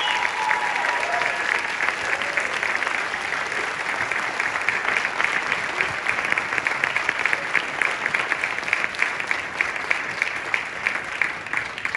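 Audience applauding, the clapping growing more separate and individual in the second half.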